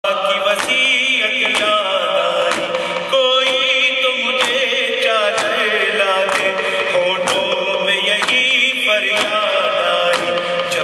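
A man chants a nauha, an Urdu mourning lament, into a microphone in a wavering, ornamented voice. Sharp beats fall about once a second under the voice.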